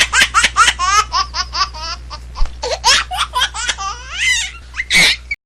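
High-pitched laughter in rapid bursts of 'ha-ha' pulses, slowing near the middle, then a long rising whoop and a last burst before it cuts off suddenly near the end.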